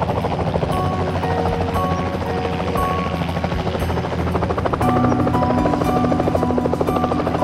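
Mi-8 transport helicopter running at take-off power as it lifts off, its rotors giving a fast, even chop that grows a little louder about five seconds in. Background music with held notes plays over it.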